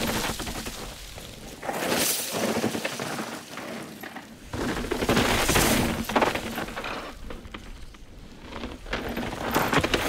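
Downhill mountain bike tyres sliding and skidding over loose, dry dirt and gravel, in loud swells of crunching noise about every three to four seconds.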